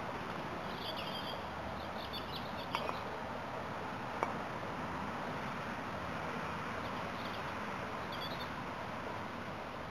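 Outdoor ambience on a croquet lawn: a steady background hiss with short high bird chirps now and then, and a couple of faint knocks from the croquet play, the sharpest about four seconds in.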